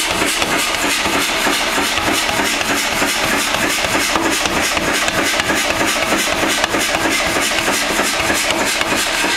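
Mechanical power hammer beating a red-hot iron bar in a fast, steady run of blows.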